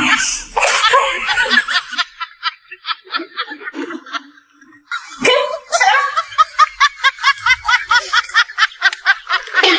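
A person laughing in rapid 'ha-ha-ha' pulses, about six a second. The laugh trails off partway through and starts up again about five seconds in.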